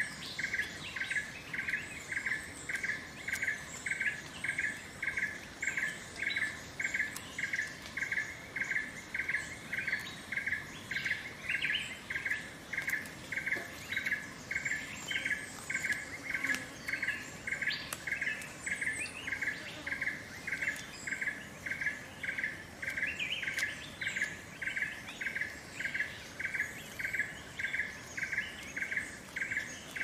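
An insect calling in a steady, even pulsing rhythm of about two pulses a second, high-pitched and unchanging, with scattered bird chirps over it.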